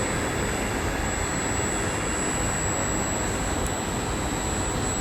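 Steady rumble and noise of a train in motion, even throughout with no breaks.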